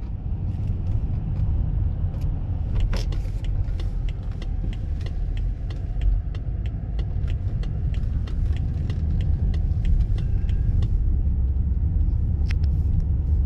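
Car driving slowly, heard from inside the cabin: a steady low road and engine rumble. Over it runs a rapid, regular light ticking that stops near the end.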